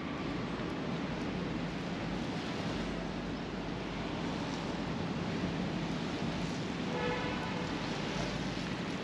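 Steady rain and traffic on a wet city street, an even hiss with a low rumble. About seven seconds in, a horn begins to sound faintly.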